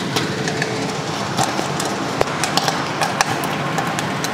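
Corn kernels popping in the stainless steel kettle of an LPG popcorn machine, irregular sharp pops a few times a second, over the steady hiss of the LPG burner flame heating the kettle.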